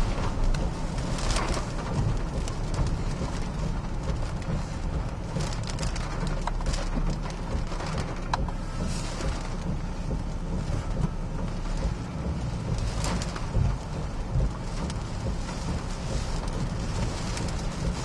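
Hurricane wind and heavy rain: a steady rush of noise with a low rumble beneath it and scattered sharp taps throughout.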